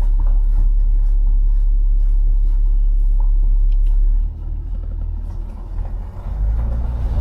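Low rumble of a car moving slowly, heard from inside the cabin. The rumble drops off about four seconds in, and a steady engine hum comes up near the end.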